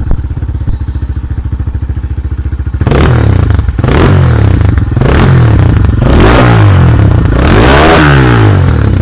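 TR250 motorcycle engine idling with a rapid, even beat, then revved repeatedly from about three seconds in, in several blips that rise and fall in pitch.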